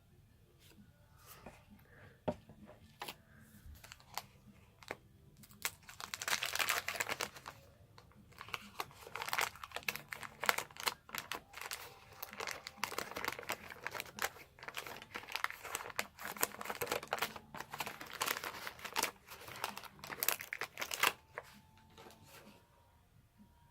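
Wax-paper wrapper of a 1981 Donruss baseball card pack crinkling and tearing as it is opened. A few sharp clicks and taps come first, then dense crinkling from about six seconds in that stops shortly before the end.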